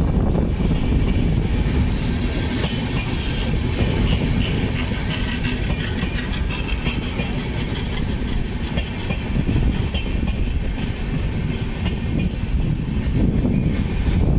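Passenger train of red-and-grey LHB coaches rolling past at speed: a steady rumble of wheels on rail with a rapid clickety-clack of wheel clicks over the track.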